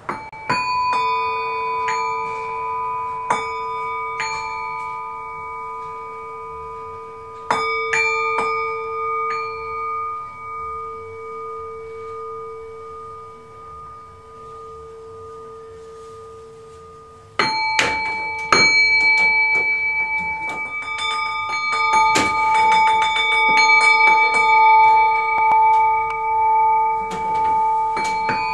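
Struck metal chimes ringing with a long sustain. A few separate strikes open it, the tones fade through a quieter stretch, and about seventeen seconds in a sudden flurry of rapid strikes sets several pitches ringing together.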